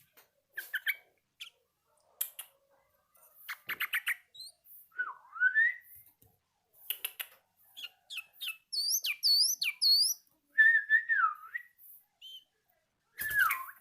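Yellow-vented bulbul practising its song: scattered chirps and short slurred whistles, a harsh chatter about four seconds in, three quick high looping notes near the middle, and a falling whistle near the end.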